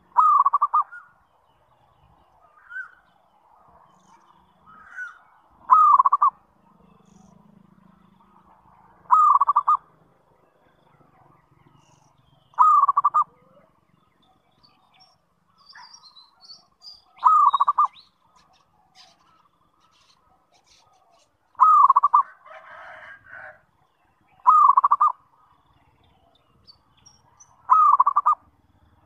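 Zebra dove (perkutut) cooing: a short coo phrase repeated eight times, about every three to four seconds.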